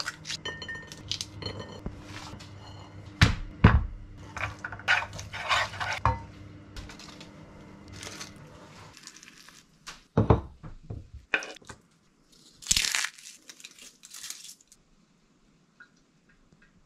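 Close-up kitchen handling sounds: green pea pods snapped and split by hand, with small clicks and crackles as peas drop into a glass dish, over a faint low hum that stops about nine seconds in. Then a few sharp knocks and a loud burst of paper crinkling as a paper wrapper of crispy topping is handled.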